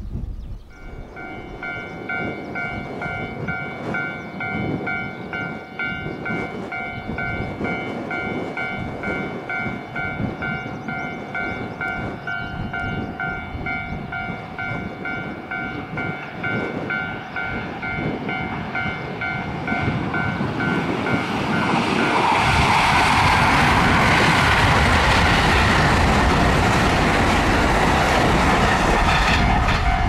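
Level crossing alarm starts about a second in, an evenly repeating electronic ding that keeps going. From about twenty seconds in a white-and-blue JR West limited express electric train comes up and passes, its running noise rising to become the loudest sound over the bell.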